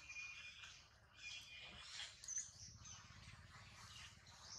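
Faint high bird chirps and short whistles over a quiet outdoor background.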